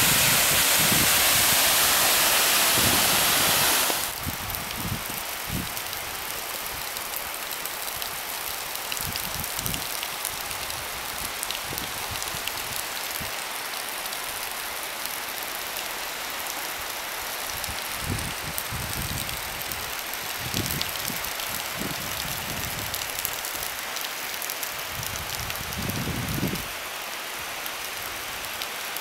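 Small mountain waterfall rushing loudly. About four seconds in, the sound drops sharply to a softer, steady water hiss with scattered light ticks and a few low thumps.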